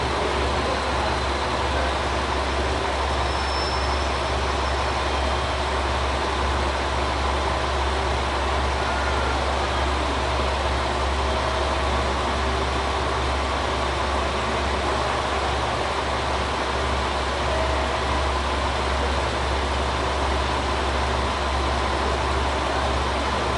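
KiHa 185 diesel railcar standing with its diesel engines idling: a steady low drone.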